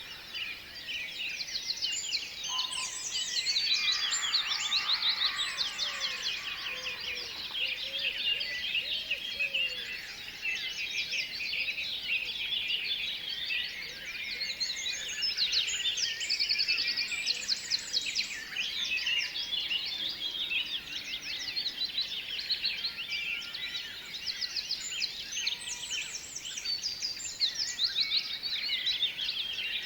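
Many small birds chirping at once in a dense, continuous chorus of rapid trills and twitters.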